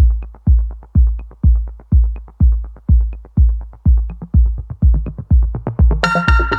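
Electronic dance music with a steady drum-machine kick about two beats a second; a bright synth chord comes in near the end.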